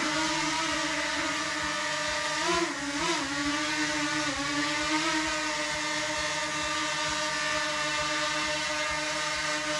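DJI Mini 2 quadcopter drone hovering, its four propellers giving a steady high whine. The pitch wobbles briefly about two and a half to three seconds in, and again near five seconds.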